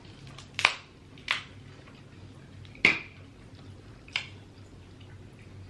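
Four short, sharp cracks and clicks of a seafood boil being eaten.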